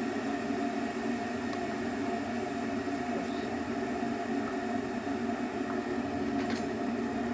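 A steady machine hum with a few faint clicks, one a little more distinct near the end.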